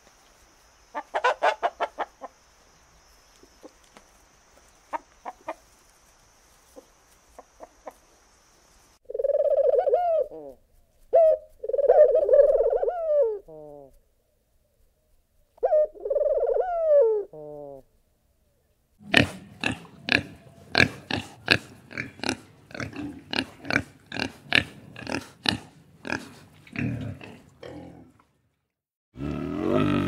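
Black roosters and hens clucking, then three loud drawn-out calls, followed by a quick, even run of short calls from pigeons in a loft, about two a second. A bear's deep grunting starts just before the end.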